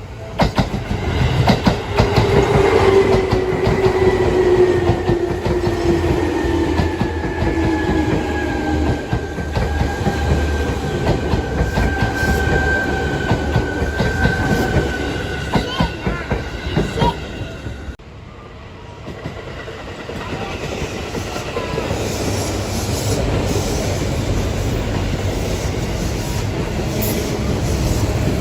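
Electric train running, with clicks from the wheels over the rails and a whine that falls slowly in pitch over about fifteen seconds. The sound breaks off sharply about eighteen seconds in, then train running noise builds up again.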